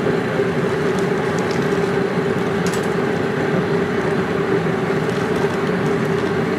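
Steady roar of an outdoor propane burner under a large seafood-boil pot at a rolling boil, with a few crackles of the potato bags being torn open and emptied.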